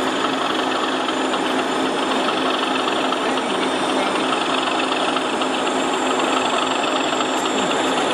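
Diesel engine sound from a sound-fitted model diesel locomotive, a steady running drone that does not change.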